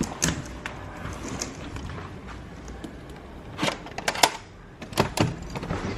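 Scattered sharp clicks and knocks, with a couple close together around the middle and near the end, over faint room noise.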